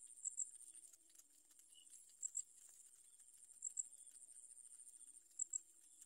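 Faint, high-pitched double chirps repeating about every second and a half over a steady high-pitched hiss.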